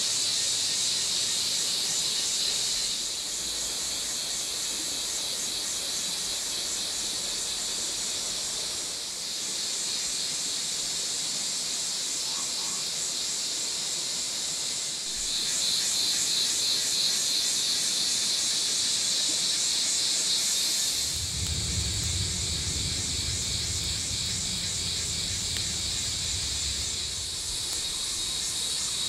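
A steady, high-pitched chorus of forest insects buzzing. About two-thirds of the way through, a low rumble joins it.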